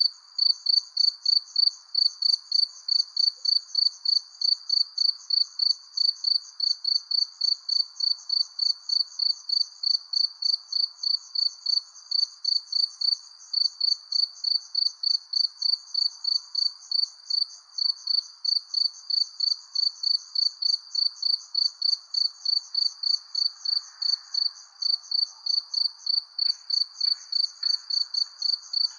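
Cricket chirping in a steady, even rhythm, about three chirps a second, over a faint background hiss of night ambience.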